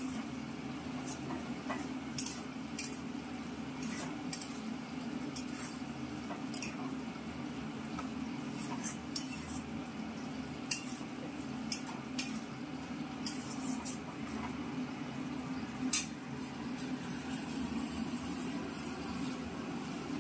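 Metal spatula scraping and clinking against a steel kadai as a spice paste of onion, turmeric and red chilli is stirred and fried. There are irregular clicks about once a second, the loudest about three-quarters of the way through, over a steady low hum.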